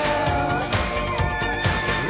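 Background music with a steady drum beat and a melody line over it.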